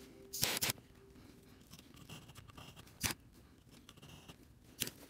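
Short, sharp scraping and clicking of hand tools working hard-wax filler into a dent in wood flooring. There is one longer rasp about half a second in, then single sharp clicks around three seconds in and near the end.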